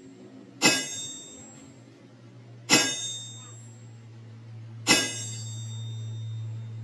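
Three hard hammer blows on steel, about two seconds apart, each with a short bright metallic ring: a helical timing gear being driven onto the nose of a truck crankshaft.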